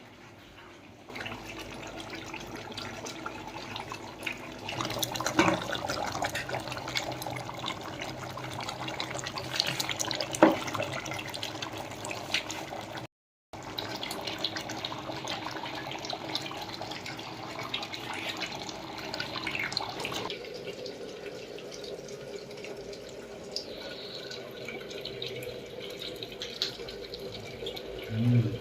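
Water running and splashing, with scattered small knocks and clinks.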